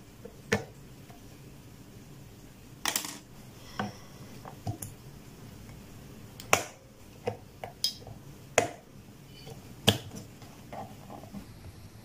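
A series of sharp plastic clicks and knocks, irregularly spaced, as a mini air cooler's battery cover is opened and AA batteries are pressed into their spring contacts, with a short rattle about three seconds in.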